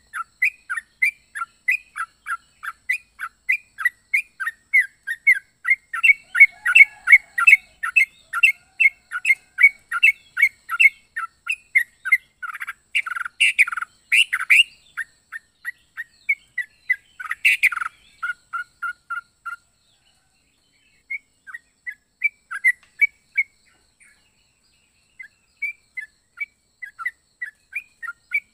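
Yellow-vented bulbul (trucuk) chattering in a rapid string of short chirps, several a second, with a few louder notes partway through and sparser, broken phrases near the end.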